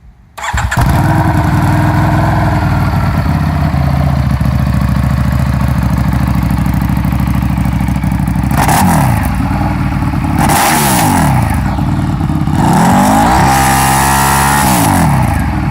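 EBR 1190RX sport bike's V-twin engine through a Dean Adams oval-can exhaust, started about half a second in and idling, engine already warm. Blipped twice near the middle, then revved and held higher for about two seconds before dropping back to idle.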